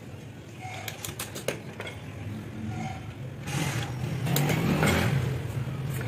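Light clicks and taps of thin wooden strips being handled and fitted together. Then, about three and a half seconds in, a louder, steady rumble of a motor vehicle's engine comes in and runs on.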